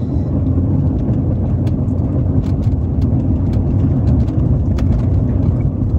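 Road and engine noise heard inside a moving vehicle's cabin: a steady low rumble from the tyres on rough, broken pavement, with scattered small knocks and rattles.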